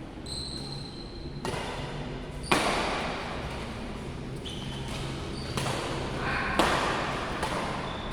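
Badminton rally: a racket strikes the shuttlecock several times with sharp, echoing hits, the loudest about two and a half seconds in. Short high squeaks come near the start.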